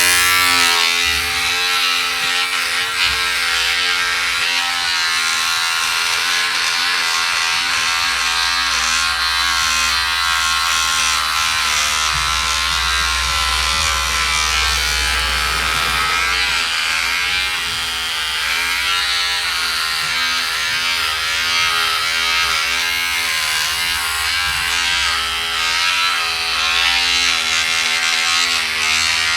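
Electric beard trimmer running with a steady buzz, its pitch wavering slightly as the blades cut through a short beard. The buzz sounds in a small bathroom.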